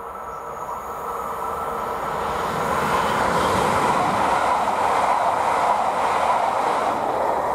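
InterPanter electric multiple unit passing close by: a rush of wheels on rails that swells over the first three seconds and stays loud as the carriages go by.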